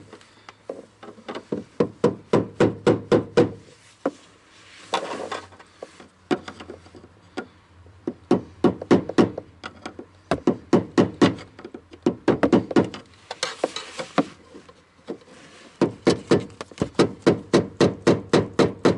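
Small hammer tapping a flathead screwdriver against a car's fuel pump retaining ring to knock it loose. The ring is on tight. The taps come in quick runs of about five a second, with two short pauses.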